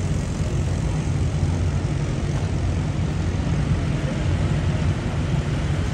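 Several winged sprint cars' V8 engines running at low speed as they roll off behind push ATVs, a steady, heavy drone.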